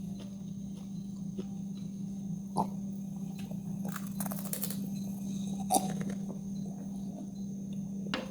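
Close-up chewing and mouth sounds of someone eating fried noodles and raw chillies, with scattered sharp clicks and a short run of crunchy clicks about four seconds in. A steady low hum runs underneath.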